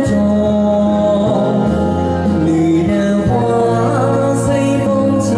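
A man singing karaoke into a handheld microphone, his amplified voice over a backing track, with long held notes.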